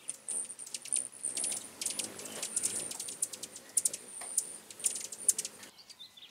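Many hummingbirds chittering around feeders: a dense run of rapid, high-pitched chips and squeaks that stops abruptly near the end.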